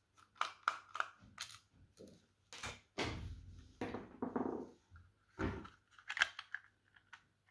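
Irregular plastic clicks, scrapes and crackles from a Microsoft Bluetooth mouse's plastic shell as it is worked with a small screwdriver and then pried apart by hand. The loudest crackles come near the end.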